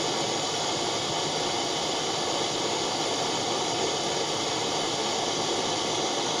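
Small handheld butane torch burning with a steady, even hiss as it heats borax and solder in a crucible.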